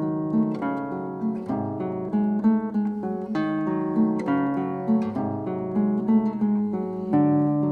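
Acoustic guitar music: a steady run of plucked notes and chords.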